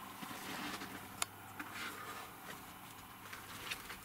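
Quiet room tone with a faint steady low hum, broken by a few isolated sharp clicks, the loudest about a second in.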